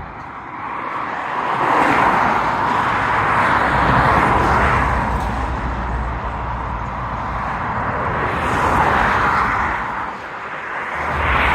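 Wind gusting through tall weeds and grass, a loud rustling hiss that swells and eases in slow waves, with wind buffeting the microphone as a low rumble at times.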